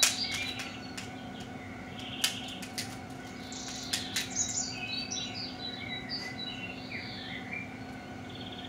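Birds chirping and trilling steadily, with several sharp cracks and clicks of crab-leg shell being broken apart by hand, the loudest right at the start.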